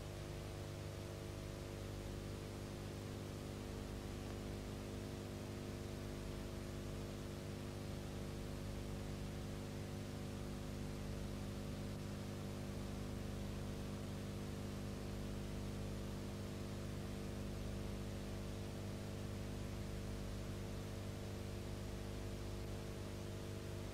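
Steady electrical mains hum with a constant hiss, the noise floor of a silent film transfer with no soundtrack.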